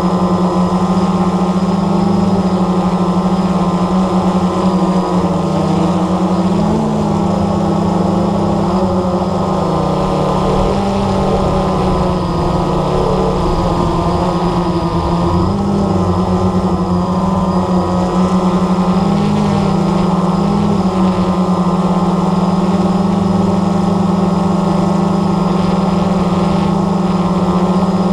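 Blade 350 QX3 quadcopter's brushless motors and propellers buzzing steadily in flight, heard close up from the GoPro mounted on it. The pitch wavers a few times as the motor speeds change.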